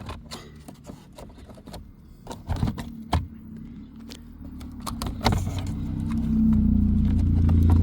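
Light clicks and knocks of a plastic door switch panel being handled, then from about five and a half seconds a vehicle engine running with a low rumble that grows steadily louder.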